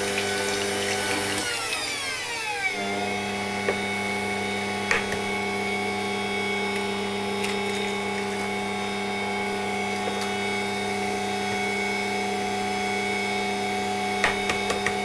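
Electric stand mixer running steadily with its whisk beating a buttermilk batter as eggs are added one at a time. Its motor pitch dips and settles about two seconds in. A few sharp taps of eggs cracked against the bowl come in the middle and near the end.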